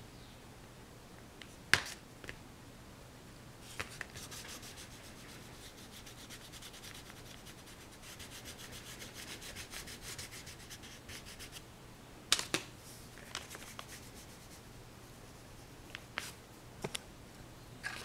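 Several seconds of fast, scratchy rubbing strokes, with a sharp click about two seconds in and a few more clicks near the end.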